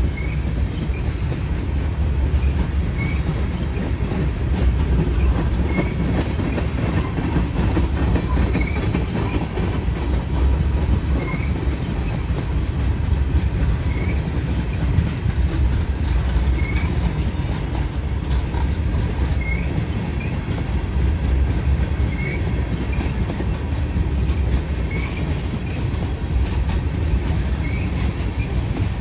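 Loaded tank cars of a freight train rolling slowly past: a steady low rumble of steel wheels on rail, with a faint high squeak repeating about every three seconds.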